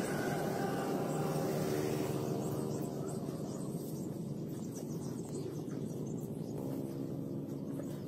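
A steady low drone with faint held tones, easing off a little about three seconds in, with a few faint ticks over it.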